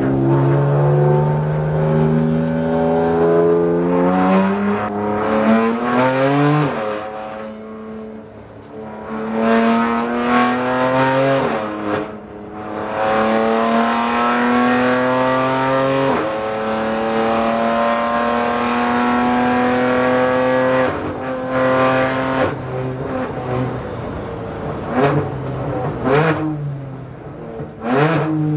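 BMW M4 GT4 race car's twin-turbo straight-six heard from the cockpit under hard acceleration, climbing in pitch through the gears with a sudden drop at each of three upshifts. Near the end it shifts down for a corner, with a series of short rises and falls in pitch.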